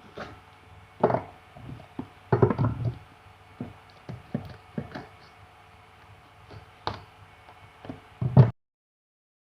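A parcel being handled and opened by hand: a series of irregular knocks, taps and short clatters, the loudest just before the sound cuts off suddenly.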